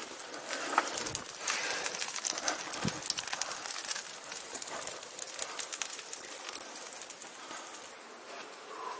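Hand-made stick-bundle torch burning close by, its flame crackling with dense, irregular pops. The crackling thins out near the end.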